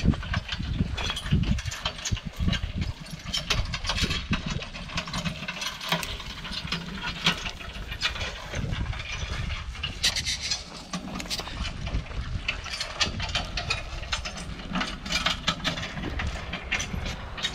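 Wind rumbling on a handheld microphone, with a run of irregular crunching footsteps on dry dirt and straw.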